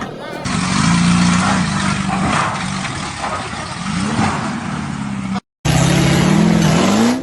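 Off-road 4x4 engine revving hard, its pitch rising and falling over a loud rushing noise. After a brief break about five seconds in, an engine revs again, its pitch climbing near the end.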